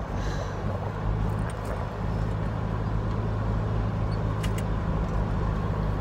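Steady engine and road noise heard inside a moving pickup truck's cab: a low, even hum.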